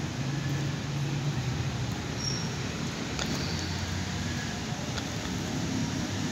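A steady low hum and rumble, with a faint click about three seconds in.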